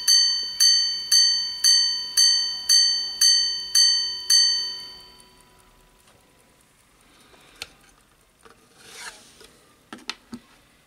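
Minute repeater pocket watch striking its gong on a wooden sounding box: one bright ringing note repeated about twice a second, nine strikes, the last ringing out about four seconds in. Then a few faint clicks, a rub and small knocks as the watch is lifted off the box.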